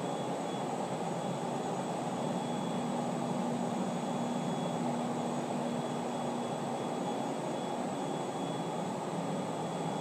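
Steady background drone: an even low rumble with a faint high whine over it, unchanging throughout.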